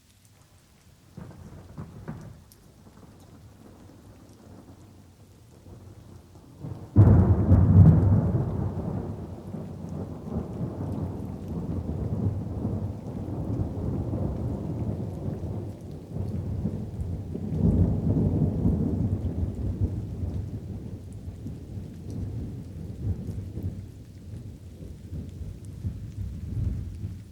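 Light rain with thunder: a faint low rumble about a second in, then a sudden loud thunderclap about seven seconds in that rolls on in long low rumbles, swelling again past the middle and dying down near the end.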